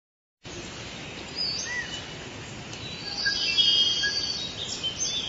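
Nature ambience of birds chirping and calling over a steady hiss, starting suddenly about half a second in, with the calls growing busier and louder in the second half.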